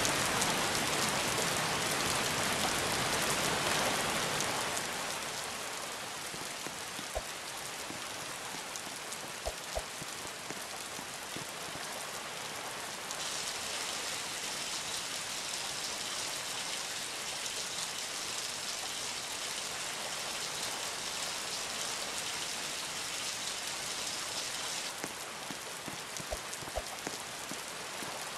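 Steady hiss of falling water like rain, louder for the first few seconds, with a few sharp taps scattered through it.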